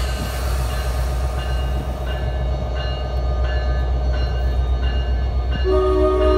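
NJ Transit diesel train rumbling steadily, with a bell dinging about every two-thirds of a second. Near the end the train's horn blows a chord of several notes.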